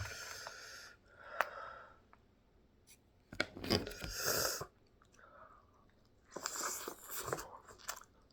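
Close-miked chewing and mouth noises from a bite of burrito, coming in several separate bursts with quiet gaps between; the loudest is in the middle.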